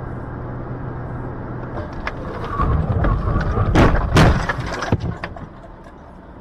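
Road noise inside a car, then a heavy rumble and, about four seconds in, two sharp crunching knocks a moment apart as the car runs into the back of the car ahead.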